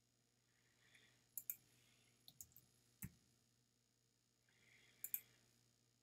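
Computer mouse clicking: a handful of quiet clicks, several in quick pairs, with a faint rustle just before the first pair and again before the last pair.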